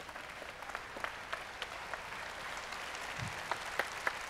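Audience applauding in a large hall: many people clapping together, with a few single claps close by standing out sharply, more of them in the second half.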